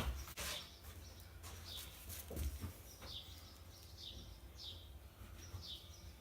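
A small bird chirping faintly, a string of short high chirps that each fall in pitch, repeating every half second or so, over a low steady rumble.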